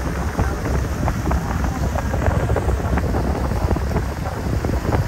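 Wind buffeting the microphone: a steady, uneven low rumble with no pitch to it.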